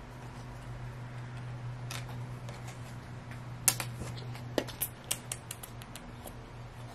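Fingers and fingernails handling a tiny paper sticker and its backing, making scattered light clicks and ticks that come more often and louder from about halfway in, over a steady low hum.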